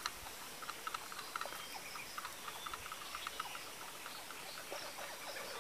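Faint outdoor ambience with many soft, short chirps and ticks of calling insects scattered through it, and a small click right at the start.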